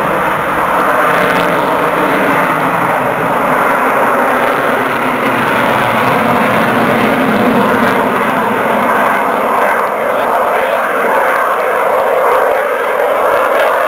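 F-16 fighter jet engines running, a loud, steady roar.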